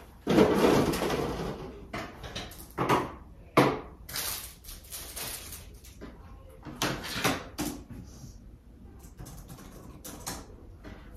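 Household handling noises: an irregular run of short scrapes, knocks and rustles, the longest just after the start.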